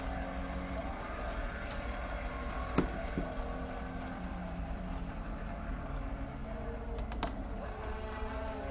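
Recording of a race car lapping a circuit at Le Mans testing, its engine running steadily with the pitch shifting a little as it changes speed. A few sharp clicks on top, the loudest about three seconds in.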